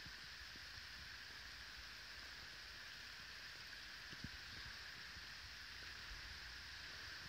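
Faint, steady hiss of light rain, with one soft low thump about four seconds in.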